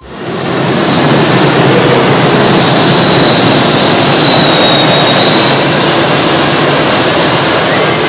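Gas turbine engine of a tractor-pulling modified running at full power: a loud, steady roar with a high whine held almost level on top, swelling up within the first second.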